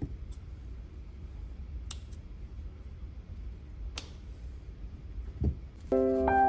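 Steady low background rumble with a few faint clicks and a low thump, then gentle piano music begins near the end.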